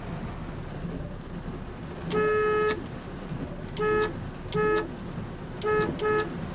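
Car horn honking while the headlight switch knob is turned: one long honk, then four short ones in two quick pairs. The horn sounding as the headlight switch moves points to an electrical fault in the vehicle's wiring.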